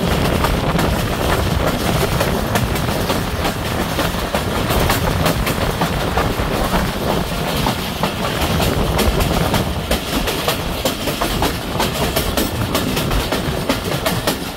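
Passenger train running at speed, heard from an open coach doorway: a steady rumble of wheels on rails with many quick clicks over the rail joints.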